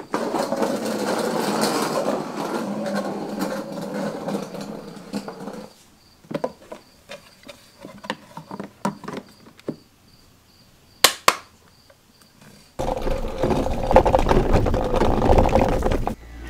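Ryobi 16-inch cordless lawn mower being handled and readied: a steady noise for about five and a half seconds, then scattered clicks and knocks including two sharp clicks, then a louder, deeper steady noise near the end.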